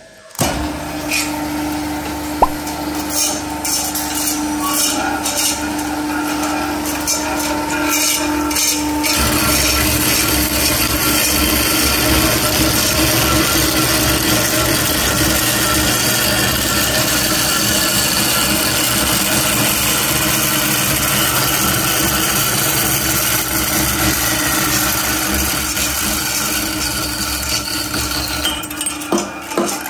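Shark 260 metal-cutting band saw running, with a few knocks in the first seconds, then its blade cutting through a stainless steel tube with a loud, steady sawing noise from about a third of the way in, easing off near the end as the cut finishes.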